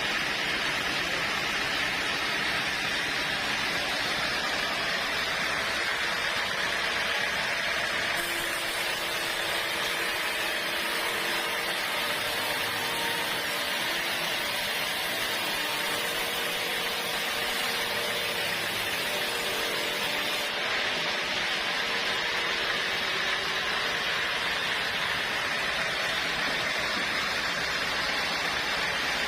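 Sawmill saw running steadily through a teak log, a constant, even mechanical noise. About eight seconds in a higher hiss joins it and drops away again near two-thirds of the way through.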